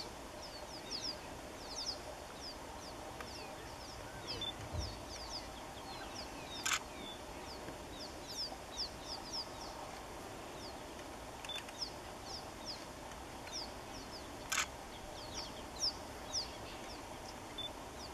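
Birds calling throughout with many short, quick, falling chirps, while a camera shutter clicks sharply twice, about a third of the way in and again near the end.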